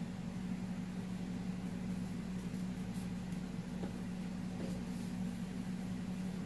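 A steady low hum, with faint rustling and a few small ticks from a cloth snake bag being untied and pulled open by hand.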